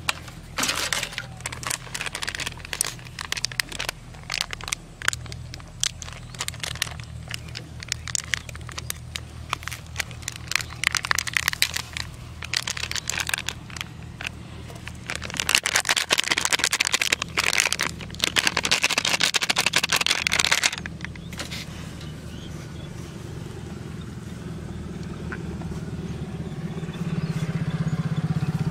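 Crackling, crinkling and scraping of paper cake cups, a knife and fingers on a steel plate as small sponge cakes are unwrapped, cut and crumbled, densest in a spell past the middle and stopping about two-thirds of the way in. A steady engine hum runs underneath and grows louder near the end.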